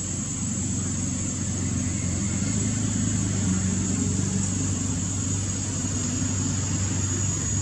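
An engine running steadily with a low hum, rising slightly in level a few seconds in, over a constant high-pitched hiss.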